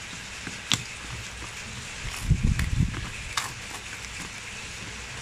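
Knife and hands working at the sealed cardboard booster box: a sharp click just under a second in, a few low thumps between two and three seconds, and another click, over a steady hiss of rain.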